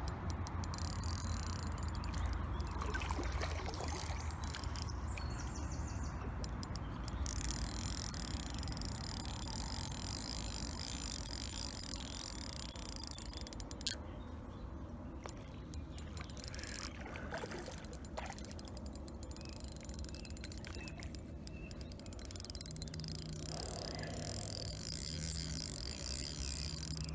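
Fishing reel's drag ticking in long spells as a hooked fish takes line, over a steady low rumble.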